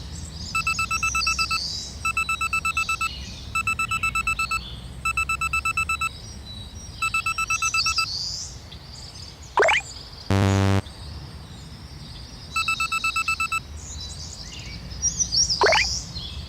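Synthetic level-crossing warning signal: one-second bursts of fast-pulsing electronic beeping, five in a row about every second and a half, then another a little after halfway. Two quick rising swoops and a short buzzer blast come in the gap, over faint birdsong chirps and a low steady rumble.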